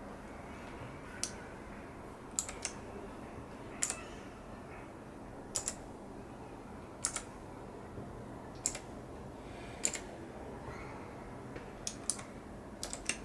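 Keys on a TiROND T10 computer keyboard pressed one at a time, a sharp click every second or so, some in quick pairs, over a steady low hiss.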